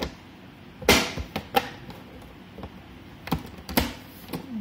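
Green plastic vegetable chopper being put back together: sharp plastic clicks and knocks as the blade-grid lid is fitted and pressed onto the container. There are about four quick knocks about a second in, the first the loudest, and three more near the end.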